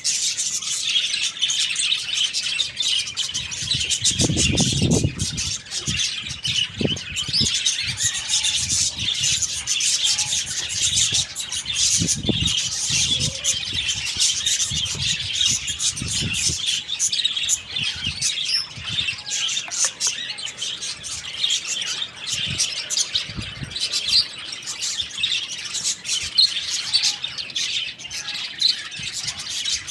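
Dense, continuous chirping of many birds, with a few short low thuds scattered through, the loudest about four seconds in.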